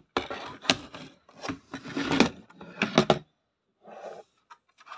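Packaging scraping and rustling as a toy laptop is slid out of its box and handled, with several sharp clicks and knocks. It stops a little after three seconds in, followed by one fainter brief rustle.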